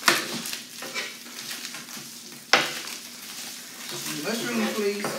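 Chopped steak sizzling on an electric griddle while a spatula stirs and turns it, with two sharp knocks, one at the start and one about two and a half seconds in.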